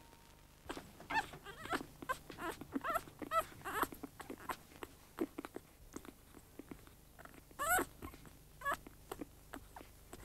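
Week-old Staffordshire Bull Terrier puppies whimpering: many short, high cries that bend and rise in pitch, with small clicks between them, in a cluster over the first few seconds and again near the end.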